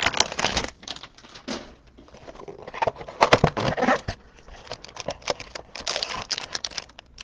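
Trading-card packaging being handled and opened: irregular crinkling, tearing and rustling of cardboard and wrapper, in a few short flurries, the busiest about three seconds in.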